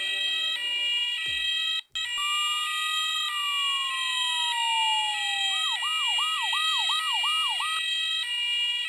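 Emergency-vehicle sirens sounding together: a two-tone siren alternating steadily between a high and a low note, joined about two seconds in by a second siren that glides slowly down in pitch and then switches to quick rising-and-falling yelps, about three a second, before the two-tone carries on alone. The sound drops out for a moment about two seconds in.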